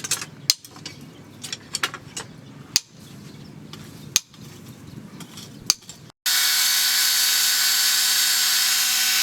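Scattered sharp clicks and taps of hand work on metal, then about six seconds in an abrupt cut to a power tool running steadily at full speed with a high whine.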